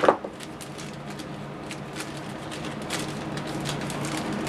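A small plastic parts bag being opened and handled. There is a brief loud squeak that falls in pitch right at the start, then scattered light crinkles and clicks of plastic.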